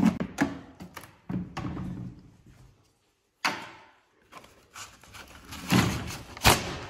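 Plastic clicks and clunks from a wall-mounted paper towel dispenser as its hinged cover is unlatched and swung open, then knocks of the housing and roll holders as the paper towel roll is pulled out. After a brief gap about three seconds in the knocks resume, the sharpest one near the end.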